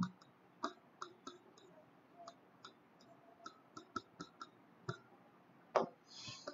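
Stylus tapping and sliding on an interactive touchscreen board while writing: a string of faint, irregular clicks, with one louder tap near the end.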